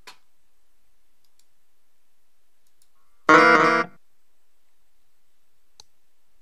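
Venga paging software's page alert sound, played as an incoming page arrives: one short musical tone with rich overtones, lasting about half a second, a little over three seconds in. A faint mouse click sounds at the very start.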